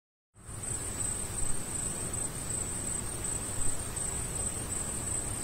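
A steady, high-pitched chirring over an even hiss and a low rumble, with no melody or beat yet.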